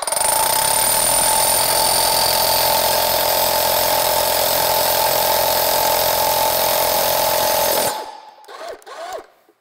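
DeWalt FlexVolt 60V SDS Max rotary hammer drilling a large hole into a concrete block under the tool's own weight: a loud, steady hammering that stops suddenly about eight seconds in.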